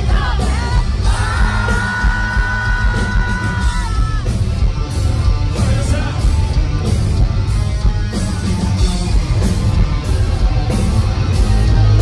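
Live hard rock band playing loud, with distorted guitars, bass and drums under a lead singer's yelled singing. About a second in, the singer holds one long note for roughly three seconds.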